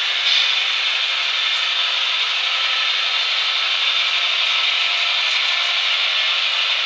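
Long model freight train, hauled by two model AC6000 locomotives, rolling up a wooden helix. The wheels running on the track over the wooden roadbed make a steady rushing rumble.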